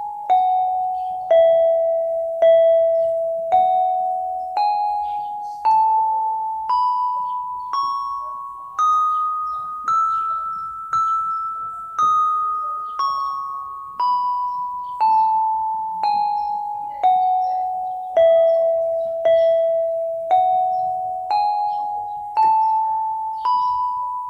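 Yamaha PSR-32 electronic keyboard playing a scale one note at a time, about a note a second, each note struck and dying away. The scale runs down a few steps, climbs about an octave, comes back down and starts climbing again.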